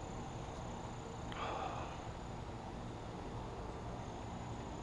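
Quiet outdoor background with insects trilling steadily in a high, thin tone. About a second and a half in there is a brief soft noise.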